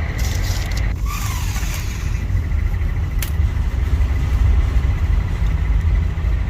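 Steady low rumble of an engine running nearby, with a faint click about three seconds in.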